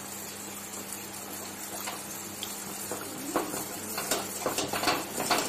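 Metal spoon stirring semolina into custard milk in a stainless steel pot, with soft scrapes and light clinks against the pot that come more often near the end, over a steady low hum.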